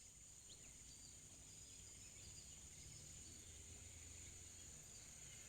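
Faint, steady, high-pitched insect drone with a few faint, short bird chirps over it.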